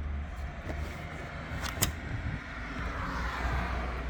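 A sharp click of a latch or panel being handled in a car's trunk, about two seconds in, over a steady low rumble; a rising hiss builds near the end.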